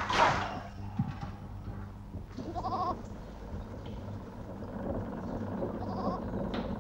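Background ambience with a short quavering animal call about two and a half seconds in and a fainter one near the end, over a steady low hum. A brief swish at the very start is the loudest moment.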